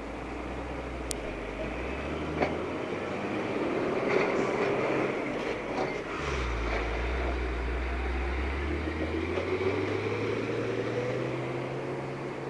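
Excavator's diesel engine and hydraulics working. The low engine drone swells twice under load, with rising whines and a few sharp clicks.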